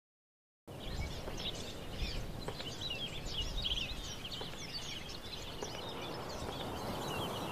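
Many small birds chirping busily over a steady outdoor background hiss, starting abruptly under a second in after total silence.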